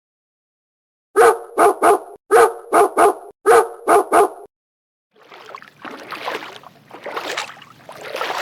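A dog barking: nine short, loud barks in three quick groups of three. Then, from about five seconds in, a rougher, noisier animal sound that swells and fades in waves.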